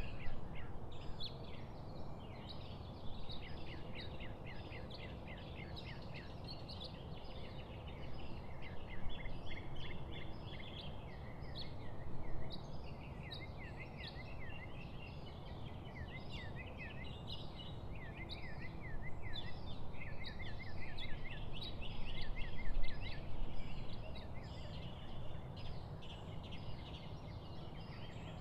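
Several small birds chirping and singing in a busy, overlapping morning chorus of quick repeated notes, over a steady low background rumble.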